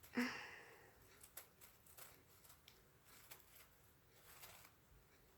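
A short sharp sound just after the start, then faint scattered clicks and rustles of small objects being handled.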